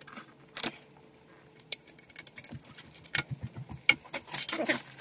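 Loose wire cores and an earth conductor being handled inside a steel consumer-unit enclosure, rattling and tapping against the metal box. There are a couple of single clicks at first, then a quick run of clicks and rattles over the last half.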